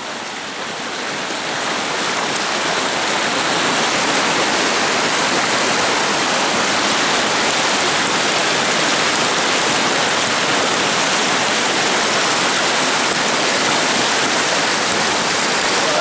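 Whitewater of a raging mountain river rushing steadily: a dense, even hiss that grows louder over the first couple of seconds and then holds.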